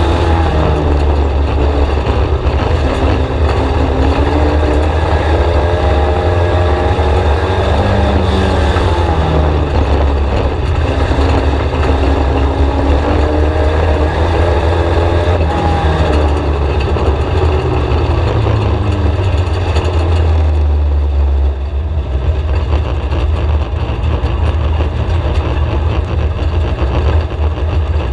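Four-cylinder race engine of a VW Scirocco stock car heard from inside the cockpit over a heavy low rumble, its note rising and falling as the car goes round the oval. About two-thirds of the way through, the engine note drops and softens.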